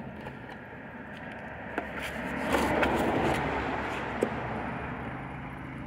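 Liquid laundry detergent (Vel Rosita) being poured into a cut-open plastic jug: a splashing hiss that swells about two and a half seconds in and then fades.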